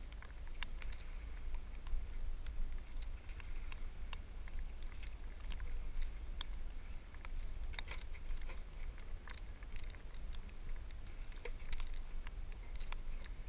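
Steady low rumble of wind and movement on a body-worn camera, with scattered light clicks and knocks.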